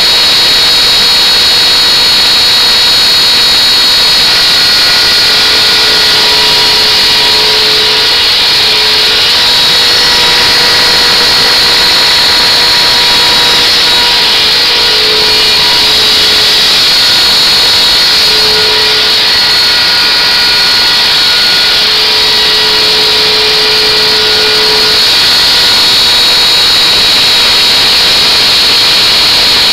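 CNC router carving grooves into a wooden board: the router spindle runs with a loud, steady high whine, with fainter pitched tones coming and going beneath it.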